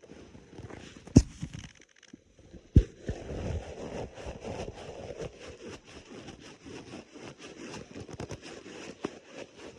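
Human stomach growling: raspy, crackling gurgles that start about three seconds in and keep going, preceded by two sharp clicks about a second and a half apart.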